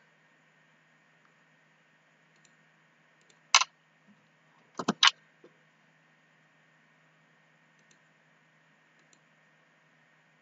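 Computer mouse clicks: one click about three and a half seconds in, then two quick clicks a second later, over a faint steady hum.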